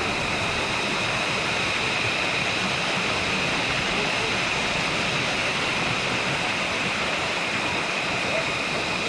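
Small waterfall pouring into a rock pool: a steady, even rush of falling water, with faint voices now and then.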